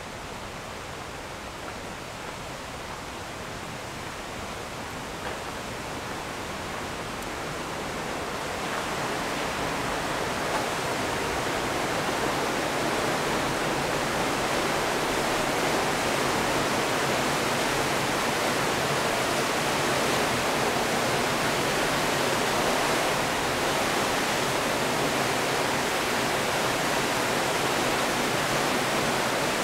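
Steady rush of falling water from Brandywine Falls, growing louder over the first ten seconds or so, then holding steady.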